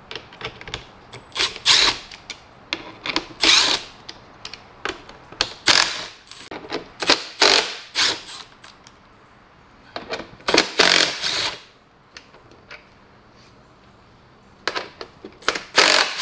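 A power screwdriver running in short bursts, backing out Torx screws from plastic console trim, with the clatter of plastic parts being handled between bursts.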